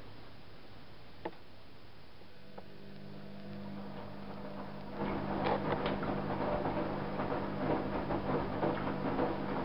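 Privileg Single 42614 front-loading washing machine in its wash phase: the drum motor pauses with a single click about a second in, then hums back up. From about five seconds in the drum turns again, tumbling and sloshing the wet laundry, typical of the pause between drum reversals.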